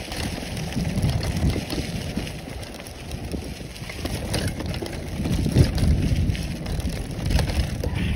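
Mountain bike tyres rolling over dry leaves and twigs on a dirt trail: a continuous crunching and crackling over a low rumble from the bumpy ride.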